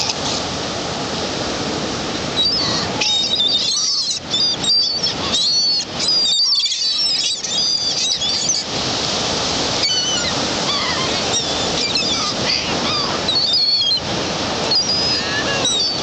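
Ocean surf breaking steadily on a beach, with wind gusting on the microphone. A scatter of short high chirping bird calls comes and goes through the middle.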